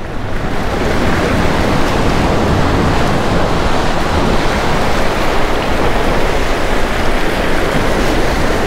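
Small waves washing and breaking against jetty rocks: a steady rush of surf.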